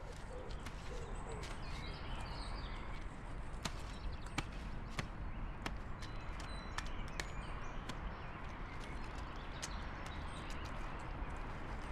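Green woodpecker pecking at the ground of a mown lawn for ants: irregular light taps, roughly one or two a second, over steady outdoor background noise, with a few faint bird chirps near the start.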